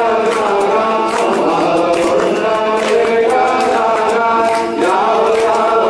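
A group of voices chanting a Hindu devotional hymn in unison.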